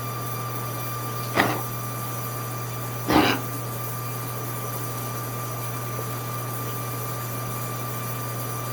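Two short coughs, about a second and a half in and again at about three seconds, over a steady low hum.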